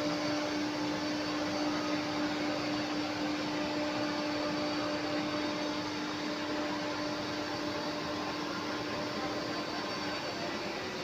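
Workshop machine running steadily: a constant whirring hum with a held drone tone and fainter high whine, unchanging throughout.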